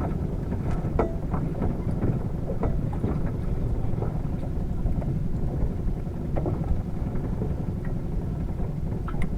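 Steady low rumble aboard a small fishing boat at sea, with a few faint clicks over it.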